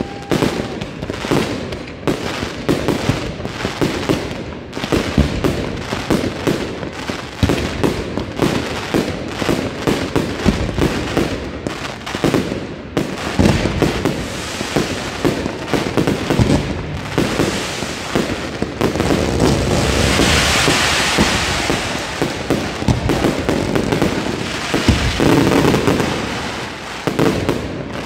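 Fireworks display: a rapid, continuous barrage of sharp bangs and pops, with a steadier hissing stretch about two-thirds of the way through.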